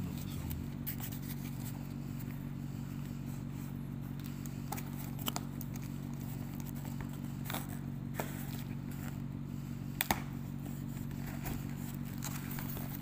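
A cardboard box being opened by hand: scattered crackles and scrapes of the flaps and packing, with a sharp double crack about ten seconds in, over a steady low hum.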